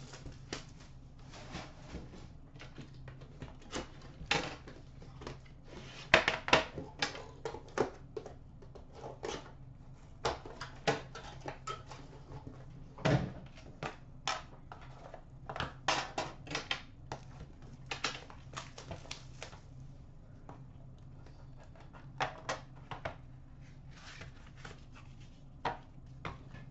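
Plastic shrink wrap crinkling and tearing as it comes off an Upper Deck The Cup hockey card box, then the box lid coming off and the inner case and cards being handled, in scattered clicks and rustles. One louder knock comes about halfway through, as the box meets the glass counter. A steady low hum runs underneath.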